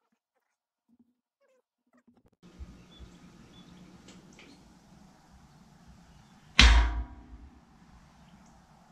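One sudden loud knock about six and a half seconds in, heaviest in the low end and dying away within half a second, over faint shop background noise that comes in about two and a half seconds in.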